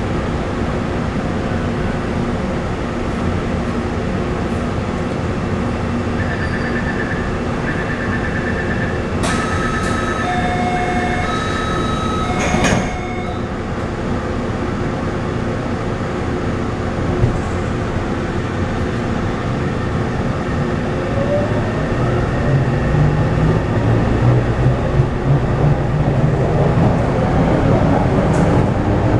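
Steady rumble inside a Taipei Metro C301 train with refitted propulsion equipment. A run of short electronic chime beeps and two sharp thuds come about a third of the way in. From about two-thirds of the way in, a rising whine from the traction inverter and motors builds as the train accelerates.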